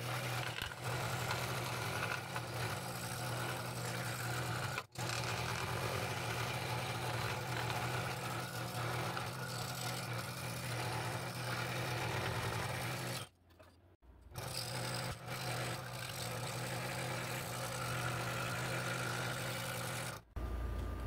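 Scroll saw running and cutting through a wooden block: a steady motor hum with the fine blade's rapid up-and-down chatter in the wood. It breaks off briefly about 5 s in and again for about a second around 13 to 14 s in.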